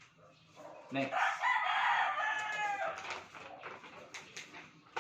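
A rooster crowing once, a high call of about two seconds that starts about a second in and drops in pitch at its end. It is followed by faint scattered clicks.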